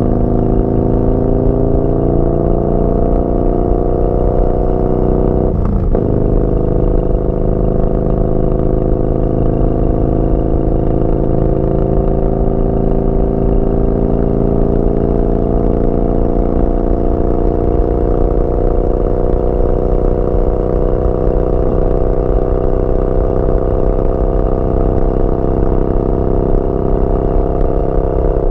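Yamaha Bolt's air-cooled V-twin running through a Vance & Hines slip-on exhaust while riding. The engine note climbs slowly under light throttle and dips briefly about six seconds in, as on a gear change.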